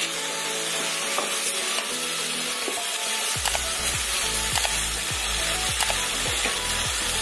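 Boneless chicken pieces sizzling in hot butter with chopped garlic in a wok over medium-high heat: a steady frying hiss, with the scrape of a wooden spatula stirring the pieces.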